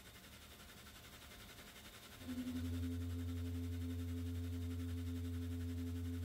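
A wooden stopped bass flute pipe of a Style 15 Fotoplayer's pipe organ sounding one held low note, starting suddenly about two seconds in. The tone wavers slightly and rapidly, the working tremolo making the wind pressure fluctuate.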